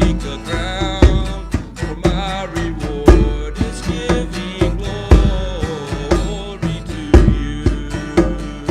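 Music with a steady drum beat, a heavy stroke about every two seconds with lighter hits between, under a wavering melodic line.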